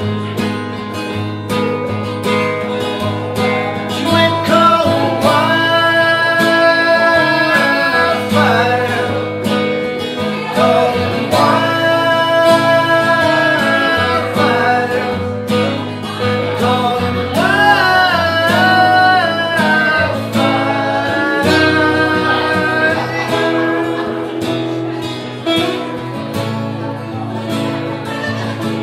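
Two acoustic guitars strumming a country ballad in an instrumental break, with long held melody notes over the chords three times, the last one wavering in pitch.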